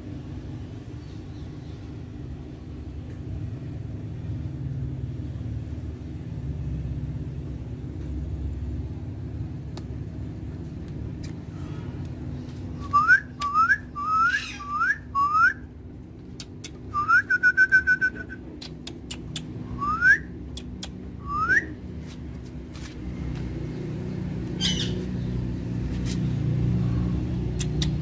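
Short upward-sliding whistles over a steady low hum: about halfway through, five come in quick succession, then one longer held whistle and two more single ones.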